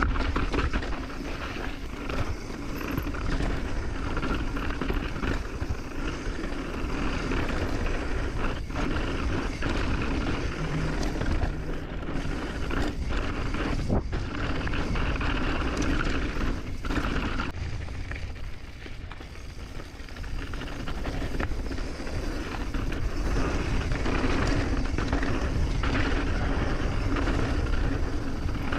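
Mountain bike ridden down a dirt trail: steady wind rush over the mic, with tyres and frame rattling over the ground and a few sharp knocks. It goes quieter for a couple of seconds about two-thirds of the way through.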